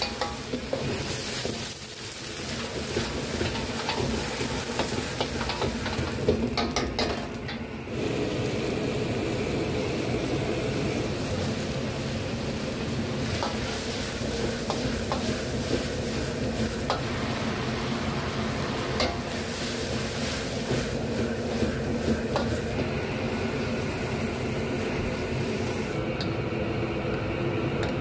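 Food sizzling in a hot wok as it is stir-fried, with a metal ladle scraping and clicking against the pan now and then over a steady hum.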